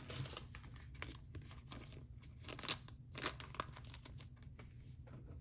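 Trading cards being handled and flipped through by hand: faint, irregular light clicks of card stock.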